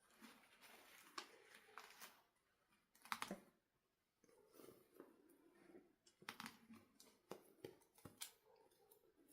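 Faint handling sounds: scattered small clicks and short rustles of small objects being moved by hand, with the loudest cluster of clicks about three seconds in.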